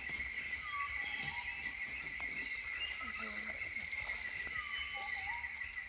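Rainforest ambience: insects keep up a steady high-pitched drone in several layers. A few short whistled calls sound over it, with one two-note phrase near the start and again about four seconds later.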